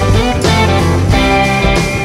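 Loud background music led by guitar, playing steadily over the soldering.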